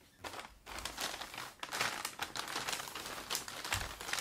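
Brown paper fast-food bags crinkling and rustling as they are handled and opened, in dense, irregular crackles, with a soft low thump near the end.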